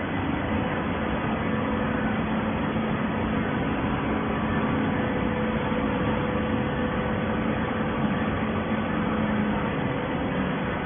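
Cardboard baling press running: a steady machine drone with a low hum that comes in just after the start and fades near the end.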